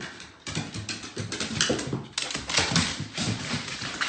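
A bull terrier's claws and paws clattering rapidly on hardwood stairs as it runs down them, a quick irregular patter of clicks and knocks that starts about half a second in.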